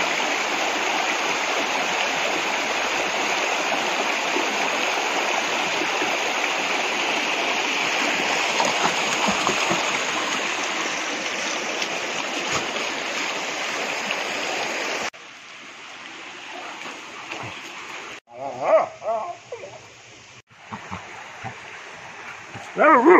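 Steady rush of a river flowing over rocks, which cuts off abruptly about two-thirds of the way through. After that the background is quieter, with two brief voice-like sounds near the end.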